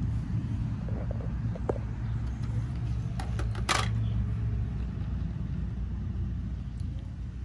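Water beads being scooped by hand in a bowl of water and pushed into a small plastic bottle: small wet clicks, and a short rattle a little over three seconds in. A steady low rumble runs underneath.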